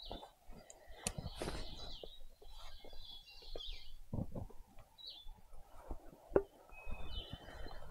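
Small birds chirping in short, high notes, over scattered soft rustles and knocks, with one sharper knock about six and a half seconds in.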